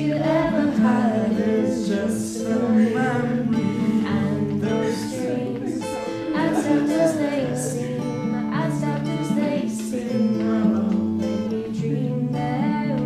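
Acoustic guitar played in chords with a woman's voice singing along.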